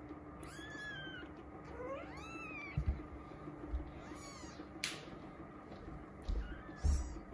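Three-week-old Persian kittens mewing: several short, high-pitched cries a couple of seconds apart, each rising and falling. There is a sharp click about five seconds in and some soft low bumps near the end.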